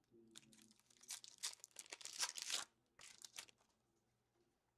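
A hockey card pack wrapper being torn open and crinkled: a crackling run of about two and a half seconds, then a shorter burst.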